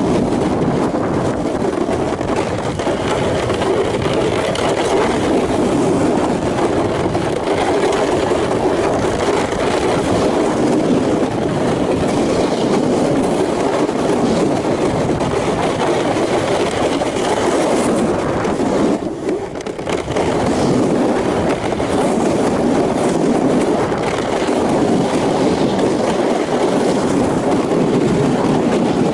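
Sled sliding fast over crusted snow and ice while pulled by a traction kite, a steady rough scraping noise. It eases off briefly about two-thirds of the way through, then picks up again.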